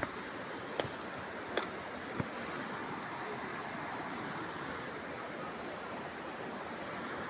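Steady rushing of a river or stream, with a thin steady high whine over it and a few faint clicks in the first couple of seconds.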